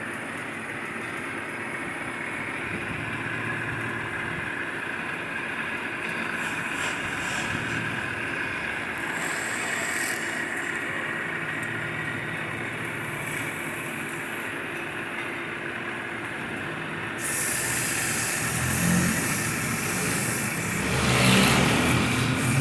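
A workshop power tool running steadily. A harsher high hiss joins about two-thirds of the way through, and a louder, rougher burst comes near the end.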